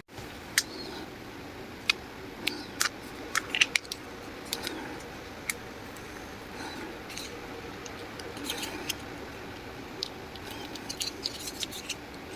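Hands handling small camera parts and packaging: scattered light clicks and taps, bunched in a few clusters, over a steady low background noise.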